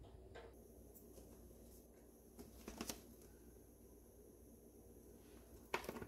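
Quiet kitchen room tone with a faint low hum, broken twice by brief rustling and clicking handling noise: once about two and a half seconds in, and again, louder, near the end.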